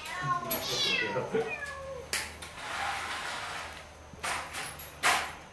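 Cats meowing: two or three drawn-out, arching meows in the first two seconds, then a few sharp knocks later on.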